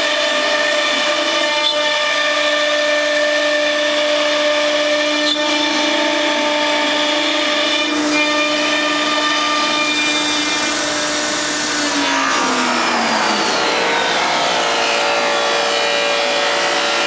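Techno Isel CNC router spindle running with a steady whine made of several tones. About twelve seconds in, the tones slide slowly downward in pitch, as the spindle slows.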